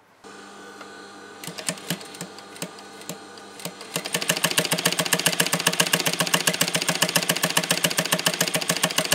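Single-needle industrial sewing machine with a ruffler (pleating) foot. Its motor starts humming, then it makes a few slow stitches, and from about four seconds in it sews fast with a rapid, even clatter of stitches as the ruffler tucks the fabric into pleats.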